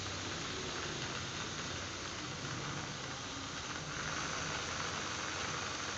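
OO gauge model locomotives running on the layout's track: a steady hiss and whir of small motors and wheels on rail, a little brighter from about four seconds in.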